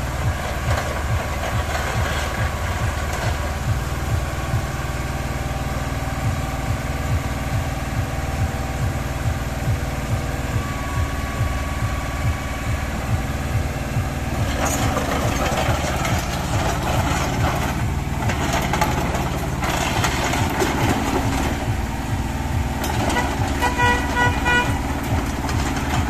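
IHI IS-010A mini excavator's two-cylinder Isuzu S2K70C diesel running with a steady low chug while the boom and arm are worked. From about halfway it gets louder and rougher. Near the end a high pitched tone sounds in several short pulses.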